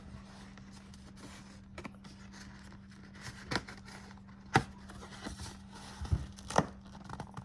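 Utility knife cutting and tearing the plastic shrink wrap of a sealed cardboard card box, the wrap crinkling, with a few sharp clicks and snaps, the loudest about halfway through.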